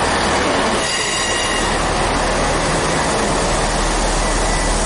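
Transport for Wales passenger train pulling into the platform and slowing, with a steady rumble and low hum. From about a second in, a high steady squeal rides over it as it slows.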